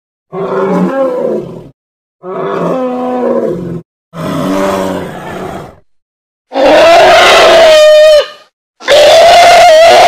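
Sound-effect calls for a Deinotherium, a prehistoric elephant relative, mixed from elephant and other animal recordings: three lower calls of about a second and a half each, then two much louder, long, higher calls held at one pitch that drop off at the end.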